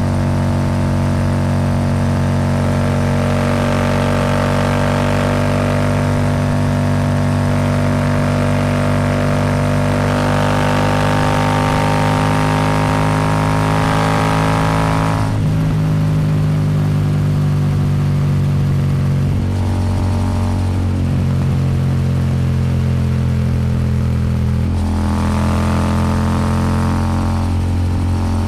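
Royal Enfield Super Meteor 650's parallel-twin engine running through a Rhino Racing slip-on exhaust at highway speed, with wind noise. The exhaust note is hard under throttle at first, softens suddenly about halfway through as the throttle eases, and hardens again near the end.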